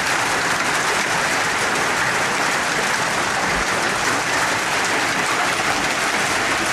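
Hail pelting down hard: a dense, steady clatter of hailstones striking the ground and surfaces.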